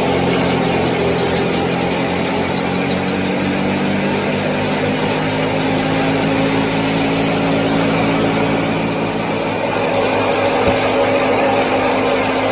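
Small motor driving a miniature model thresher, running steadily with an even hum and a brief click near the end.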